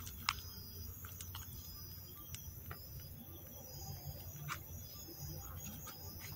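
Steady high-pitched chorus of night insects, with a handful of short sharp clicks and knocks scattered through it.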